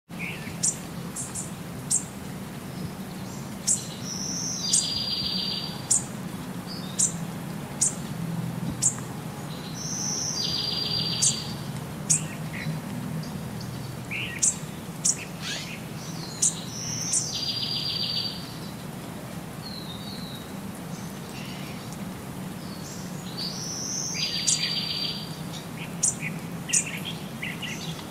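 Bird chirping: many short, high chirps, and about every six or seven seconds a buzzy call lasting about a second, over a steady low hum.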